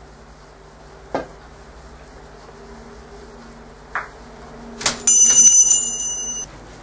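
Russian billiards shot: the cue tip strikes the cue ball about a second in, the ball clicks against an object ball by the corner pocket about four seconds in and drops into the pocket just before five seconds. At once a loud, high ringing tone follows for about a second and a half and stops abruptly.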